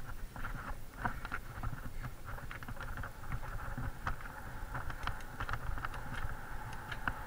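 Mountain bike rolling fast down a dirt forest trail: tyres running over packed earth and dry leaves with wind rumbling on the action-camera microphone, and frequent short clicks and rattles from the bike over the bumps.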